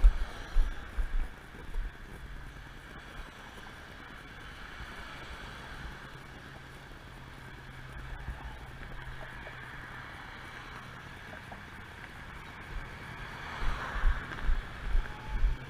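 Road traffic at an intersection, cars and a pickup truck going by, with a low steady engine hum through the middle and a louder pass about 14 seconds in. Low buffeting thumps on the body-worn camera's microphone in the first second or so and again near the end.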